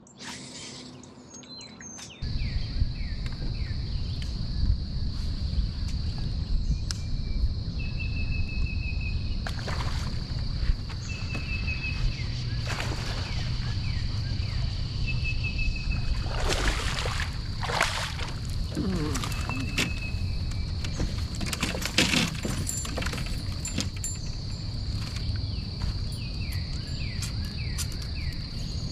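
Outdoor insect drone, one steady high-pitched tone, over a steady low rumble that starts about two seconds in. Scattered short bird chirps, and a few brief sharp noises around ten, seventeen and twenty-two seconds in.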